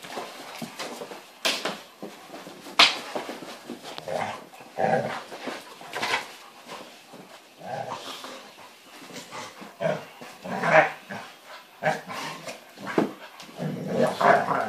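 A Doberman and a smaller dog play-fighting, with short bursts of growling and barking about every second.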